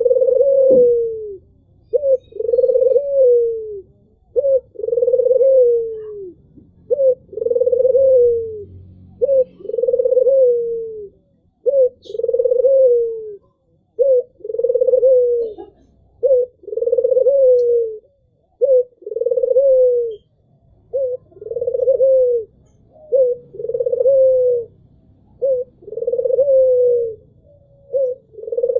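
Albino Barbary dove (puter) cooing over and over. Each call is a short note followed by a longer rolling coo that falls away at the end, repeated about every two seconds.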